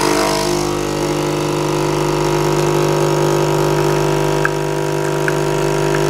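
Nespresso Citiz coffee machine's vibratory pump humming steadily as it pushes hot water through a capsule and espresso pours into the cup.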